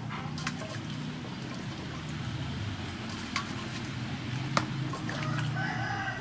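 Hands washing vegetables in an aluminium basin of water: water sloshing and dripping as the produce is lifted out, with a few sharp knocks as wet items touch the basin and the plastic basket. This is over a steady low hum, with a short animal call near the end.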